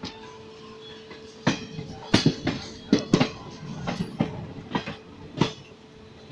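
Train wheels clattering over rail joints, heard from aboard a moving train: a string of sharp, irregular clacks starting about a second and a half in, over a steady running rumble.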